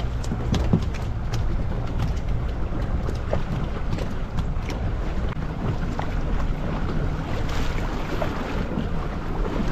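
Steady wind and water noise on a fishing boat at sea, with a low rumble and wind buffeting the microphone, and scattered light clicks and knocks throughout.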